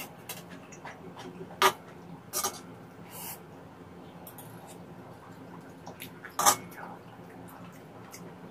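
Metal spoon clinking and scraping on a ceramic plate while eating scrambled egg with tomato, with a few sharp clinks about a second and a half, two and a half, and six and a half seconds in, and soft eating sounds between.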